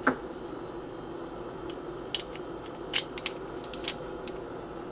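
Light metal clicks and clinks, about five separate ones, as a Glock 17 slide and its new rear sight are fitted into a sight-installation tool.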